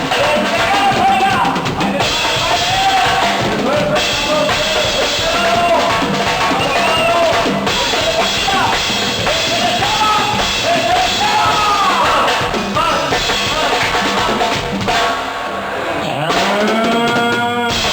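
Duranguense band music in an instrumental passage without singing: a busy drum kit with snare and bass drum under a melodic line that slides in pitch, with a pitch sweep near the end.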